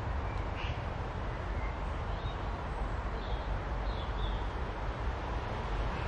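Steady outdoor background noise with a low rumble, and a few faint, short bird calls scattered through.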